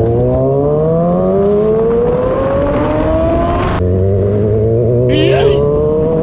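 A vehicle engine accelerating hard, its pitch climbing steadily for about four seconds. It drops briefly at a gear change, then climbs again. A short hissing noise comes about five seconds in.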